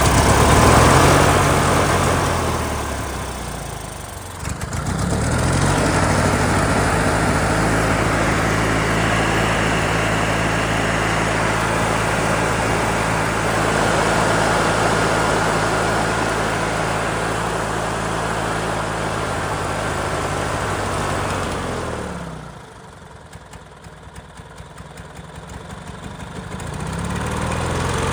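19 hp twin-cylinder Briggs & Stratton engine on a Sears Craftsman riding mower running at full throttle on choke. It sags and recovers about four seconds in, runs steadily, then winds down and dies about twenty-two seconds in, with faint regular ticks before it picks up speed again near the end. The stall goes with the engine shooting oil and gas out through the breather into the air filter.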